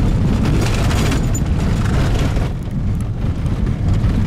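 Road noise inside a pickup truck's cab on a rough dirt road: a heavy low rumble with jolts and rattles, easing slightly after about two and a half seconds.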